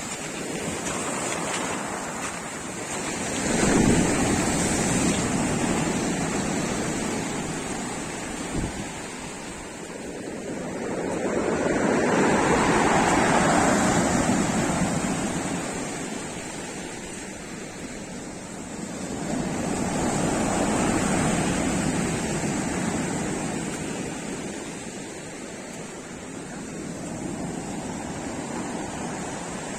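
Black Sea waves breaking on the shore, the surf rising and falling in slow surges about every eight or nine seconds.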